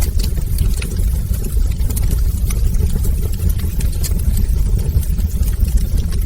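Wood fire burning in a fireplace: a steady low rumble of flames with frequent small crackles and pops from the burning logs.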